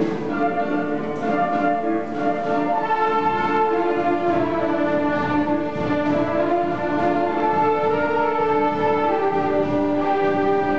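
Student orchestra of violins, clarinets and flutes playing together in long held notes, the melody moving slowly from note to note at a steady level.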